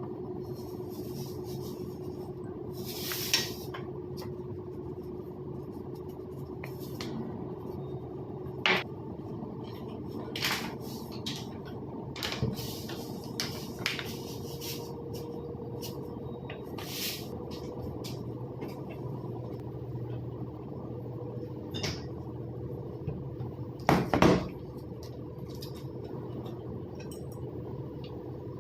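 Pots and cooking utensils clinking and clanking now and then over a steady low kitchen hum. The loudest is a pair of clanks about three quarters of the way through.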